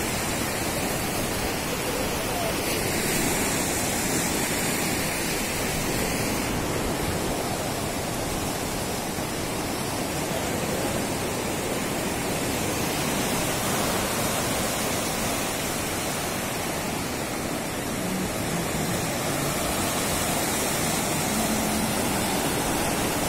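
Steady rush of a river in flood, fast water churning and breaking in waves against and over a broken low-level bridge.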